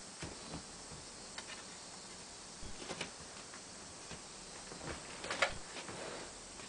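Faint scattered clicks and ticks from a Bang & Olufsen BeoSound 1, then a louder short cluster of clicks about five seconds in as its slot-loading mechanism draws a CD in from the top.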